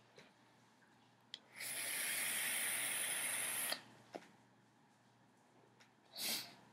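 Steady airy hiss of a sub-ohm vape, an iPV2 box mod firing a dripping atomizer at about 30 watts, while a long draw is pulled through it. It starts just after a faint click and cuts off sharply about two seconds later. A short breathy exhale of vapor follows near the end.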